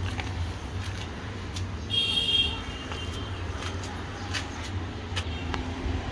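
Urban outdoor background with a steady low hum of traffic and scattered short, sharp knocks. A brief high-pitched tone comes about two seconds in.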